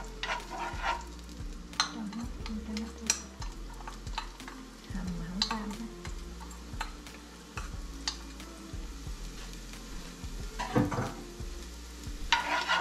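Sharp clicks and taps of a utensil against a frying pan of heating cooking oil. Near the end a loud sizzle breaks out and keeps going as frying starts in the hot oil.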